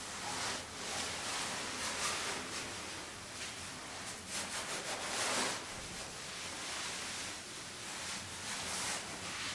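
Cloth rustling and soft scraping as a person shifts and settles on stone stair steps, in irregular swishes; the strongest comes about five seconds in.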